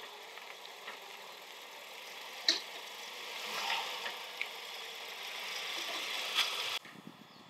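Toyota minivan driving slowly in at low speed, its engine running and growing louder as it draws close, with a few sharp clicks; the sound cuts off suddenly near the end.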